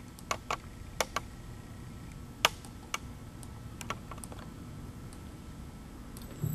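Scattered light clicks and knocks at irregular intervals, the loudest about two and a half seconds in, over a low steady hum.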